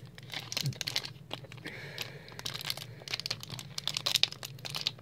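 Foil Pokémon booster pack wrapper crinkling and tearing as it is handled and ripped open, in many irregular crackles.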